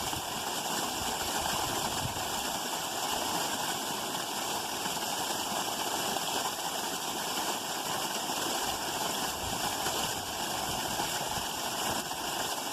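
Creek water running in a steady rush.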